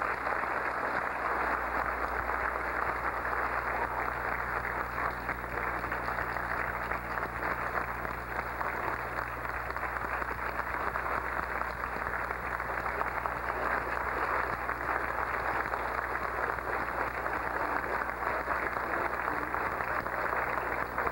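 Large audience clapping steadily without a break, over a faint low hum.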